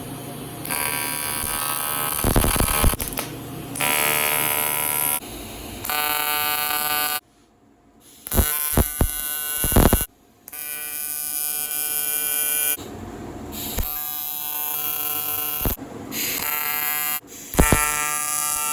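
AC TIG welding arc on aluminum, buzzing loudly in several separate runs that stop and start again as tack welds are laid, with a few sharp clicks in the short gaps between.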